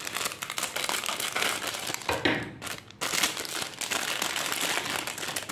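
Crinkling and rustling of a metallised foil snack packet being cut open with scissors and pulled apart by hand, with a short lull partway through.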